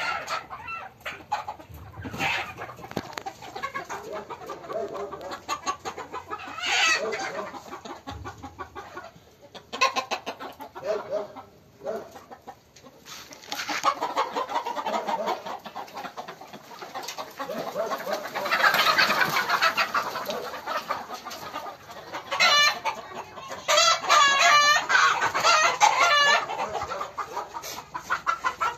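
A young kitten meowing and hissing in distress while it is chased and then grabbed, with chickens clucking. Near the end comes a run of loud wavering cries.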